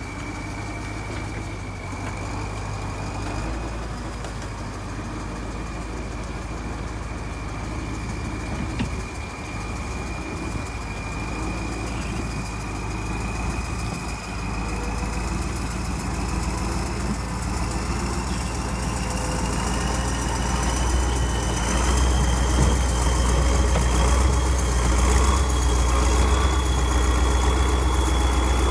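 MT-LB tracked armoured carrier's V8 diesel engine running steadily, with a thin high whine that slowly rises in pitch. The sound grows louder over the last third.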